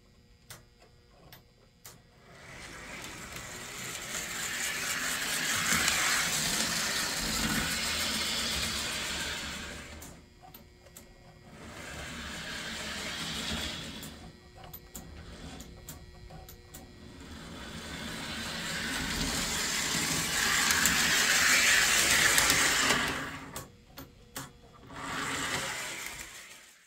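A small electric motor whirring in four long passes, each swelling up and fading away, with a few sharp clicks in between.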